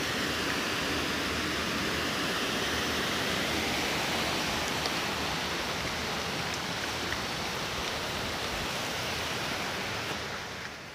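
Steady rushing of water running down a small hillside stream, fading away near the end.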